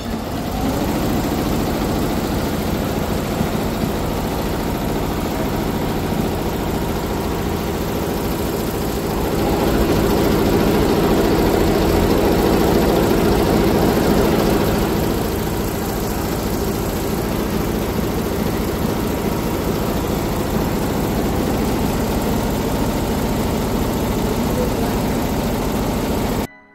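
Multi-head computerized embroidery machine running, its heads stitching with a steady mechanical hum; it swells slightly in the middle and cuts off suddenly near the end.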